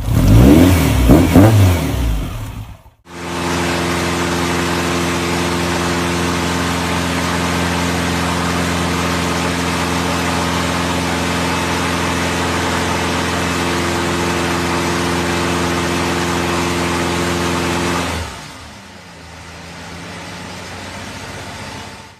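Freshly repaired engine on a test run: revved hard with its pitch rising and falling, then after a sudden break running at a steady speed for about fifteen seconds. Near the end it drops to a quieter, lower note as the revs fall away.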